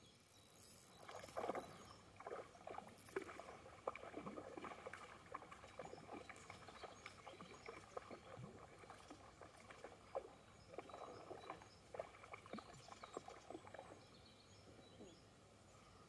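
Faint, irregular splashing and sloshing of water at a pond's edge, from handling close to the water line, with short clicks and splashes that die down near the end.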